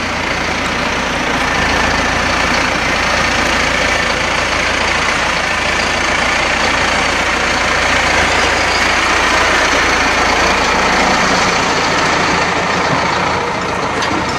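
Massey Ferguson 5711 tractor's four-cylinder diesel engine running steadily as the tractor drives out across the yard and close past, a little louder around the middle and easing off near the end.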